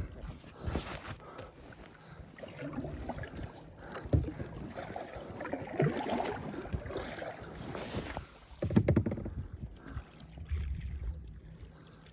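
Kayak paddle strokes dipping and splashing through lake water, irregular swishes a second or two apart, with a couple of dull knocks.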